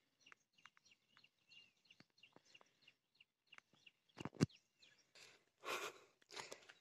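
Faint chirps of small birds, with light clicks among them. There are two sharp knocks about four seconds in, then the rustle and crunch of dry leaves underfoot near the end.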